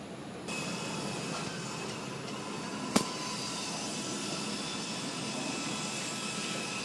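Distant jet aircraft engines across an airfield running with a steady, high whine over a broad hiss. The sound becomes louder suddenly about half a second in, and a single sharp click comes about three seconds in.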